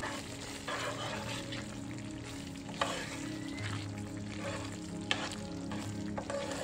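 A spatula stirring a thick curry gravy simmering in a stone-coated pan, with sizzling and a few sharp clicks of the spatula against the pan. Soft background music runs underneath.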